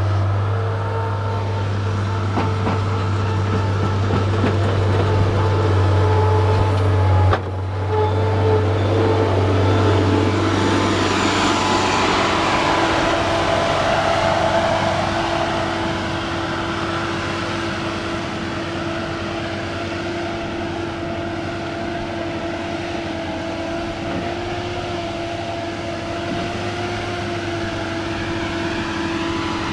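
Skid loader engine running steadily while it works the driveway dirt; about ten seconds in the low hum drops away and a higher, steady engine note takes over as it revs up.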